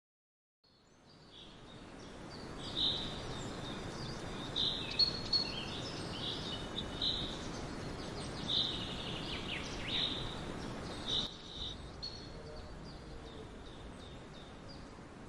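Birds chirping and calling over a steady outdoor noise, fading in from silence at the start; the calls thin out about two thirds of the way through.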